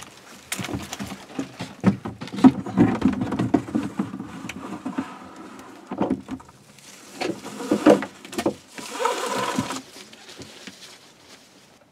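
A 6-volt golf cart battery being lowered on a carrying strap into a plastic battery box: scattered knocks and bumps of the battery against the box, with a stretch of scraping and rustling about nine seconds in.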